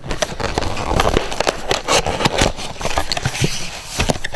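Packaging of a trading-card blaster box being torn open by hand: irregular crackling and scraping with many small clicks.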